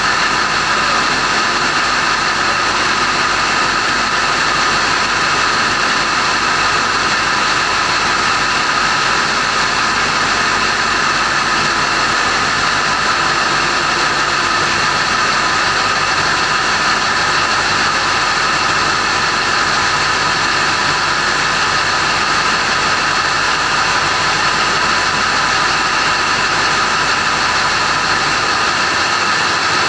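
Loud steady drone of running diesel machinery in a ship's engine room, with a constant high whine over it.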